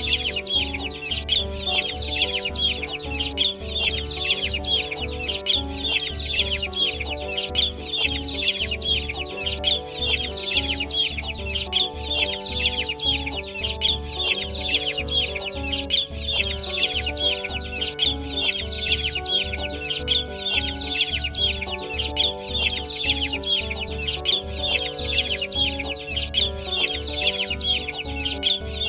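A large brood of chicks peeping continuously, many high calls overlapping, over background music with a steady beat.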